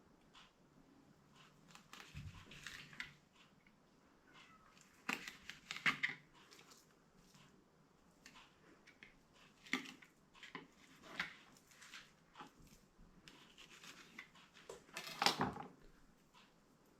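Quiet handling sounds from fish preparation: scattered clicks, taps and rustling scrapes, the loudest about fifteen seconds in.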